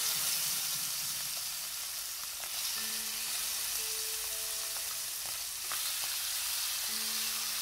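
Prawns sizzling in hot oil in a kadhai, the sizzle starting suddenly as the first prawns go into the oil and holding steady as more are added.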